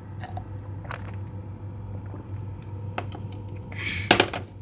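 Light knocks of kitchen items being handled, with a brief crinkle of plastic packaging and a sharper knock about four seconds in, over a steady low hum.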